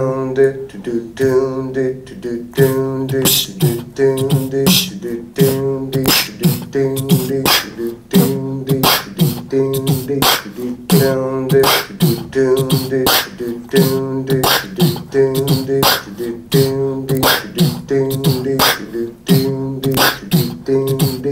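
Live beatboxing and low vocal tones layered into a repeating loop on a smartphone music app: sharp percussive mouth clicks over a pitched vocal bass line, cycling in a steady rhythm.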